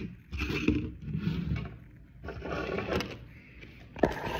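A woman breathing deeply in and out several times for a stethoscope lung exam, with a sharp knock about four seconds in.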